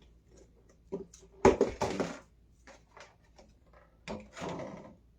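Packaged parts of a chicken taco kit being handled and separated: short plastic packaging rustles and knocks as the packs are set down, loudest about a second and a half in and again about four seconds in.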